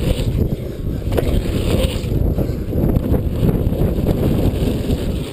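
Mountain bike ridden fast over packed-dirt jumps: heavy wind rumble on the microphone over tyre noise on the dirt, with a single sharp knock about a second in.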